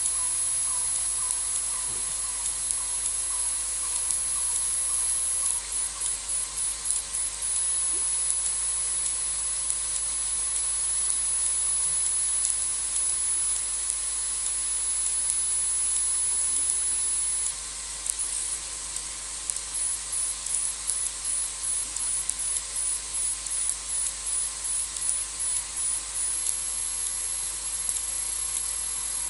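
Night insects trilling: a high, thin, steady trill that breaks into a regular pulsing song about 5 s in and again after about 18 s, over a steady hiss. For the first few seconds a lower chirp repeats about two or three times a second.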